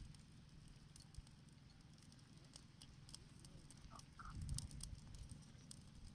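Near silence: a dry brushwood campfire crackling faintly with scattered small sharp ticks over a low rumble, with a brief louder low rumble about four and a half seconds in.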